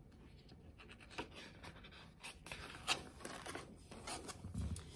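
Pages of a picture book being turned and pressed flat by hand: quiet paper rustles and brushing, the loudest about three seconds in, with a soft low thump near the end.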